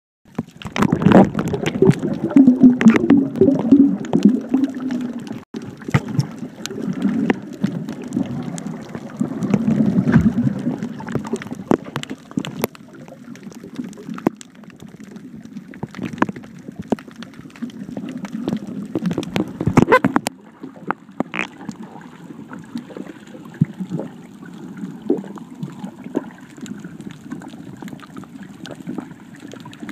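Underwater sound picked up by an iPhone 4S sealed in an underwater housing: muffled, low rumbling water movement with scattered clicks and knocks, loudest in the first few seconds.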